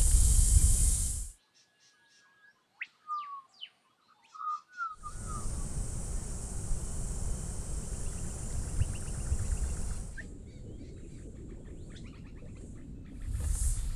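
Outdoor ambience: wind rumbling on the microphone with a steady high-pitched hiss, cut off twice by quieter stretches in which birds chirp.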